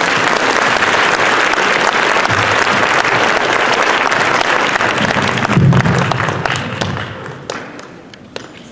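Audience applauding, a dense, steady clapping that fades away over the last couple of seconds.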